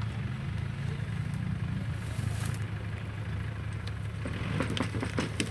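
Mitsubishi Pajero's engine running steadily at low revs as the SUV crawls over a rutted muddy off-road track. In the last second or so there are a series of sharp clicks and cracks.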